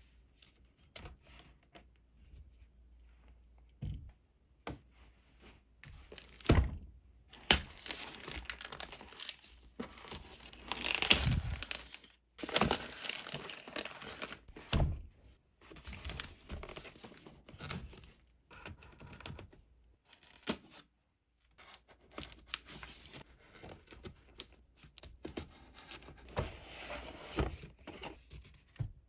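Packaging being crinkled and torn open, in irregular rustling spells with scattered light clicks and knocks; the loudest rip comes about eleven seconds in.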